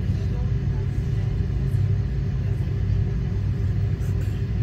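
Steady low rumble with a constant hum inside the cabin of a Boeing 777-300ER taxiing slowly, its GE90 engines running at low thrust.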